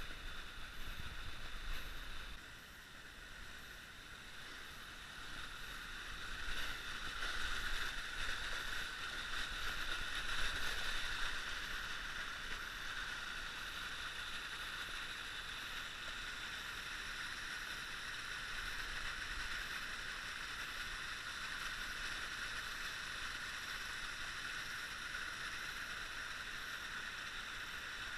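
Creek water running steadily over shale, a continuous rushing that swells a little between about six and twelve seconds in.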